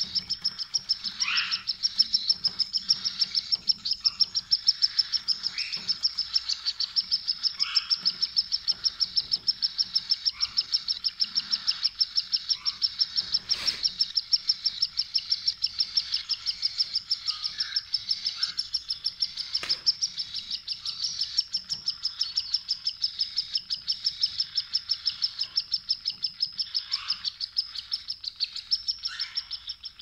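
Cockatiels chirping: a steady run of high chirps, about four a second, with louder short sliding calls now and then.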